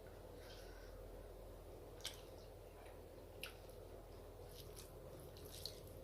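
Faint close-up eating sounds: soft wet mouth and food sounds with a few small sharp clicks, over a low steady hum.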